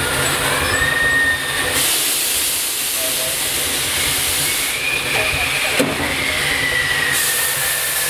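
Steam hissing in a steam locomotive's cab: a loud high hiss comes in about two seconds in and cuts in and out over a steady low rumble. A faint whistling tone drifts up and down beneath it, and there is a single knock about six seconds in.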